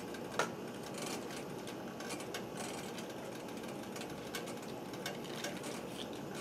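Metal spoon clinking and scraping against a stainless steel pot while stirring tofu and Napa cabbage, with a sharp clink about half a second in and lighter clicks after it, over a steady whirring background noise.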